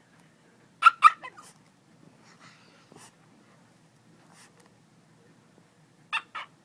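A dog making its funny noise in short bursts: a loud pair about a second in, a few fainter ones after, and another pair near the end.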